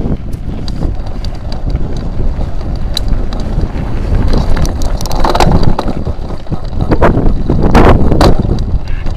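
Wind buffeting the microphone of a mountain bike rider's camera as the bike climbs a bare rock slope, with scattered clicks and rattles from the bike. The noise swells louder twice in the second half.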